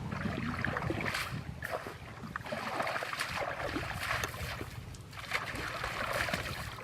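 Water sloshing and splashing in uneven surges, with small clicks, over a steady low rumble.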